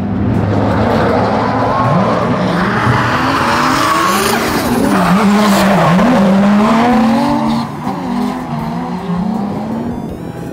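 Two drift cars running in tandem, their engines revving up and down with the throttle while their tyres squeal as they slide sideways.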